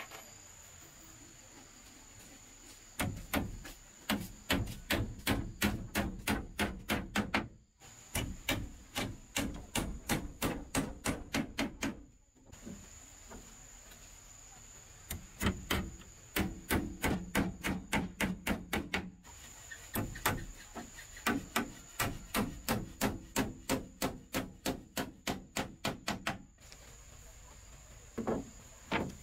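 Hammer nailing wooden slats to a cabinet frame: quick runs of sharp strikes, about four a second, several runs with short pauses between them and two last blows near the end.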